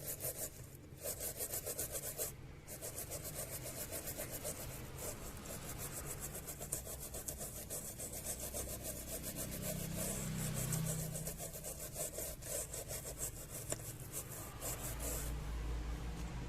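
A brush scrubbing a phone's charging circuit board in quick back-and-forth strokes, washing dust off it. The strokes pause briefly about two seconds in and stop about a second before the end.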